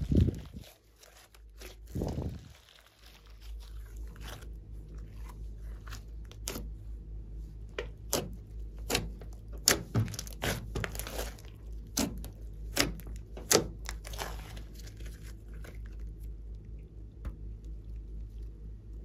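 A large glossy slime being squeezed, kneaded and pressed by hand: two soft low thuds in the first couple of seconds, then a string of sharp clicking pops and wet crackles as the slime is worked.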